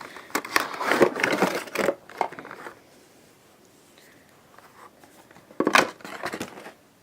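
A Funko Pop figure's cardboard box and plastic insert being opened and handled, with scraping and rustling in bursts over the first two and a half seconds and again about a second near the end.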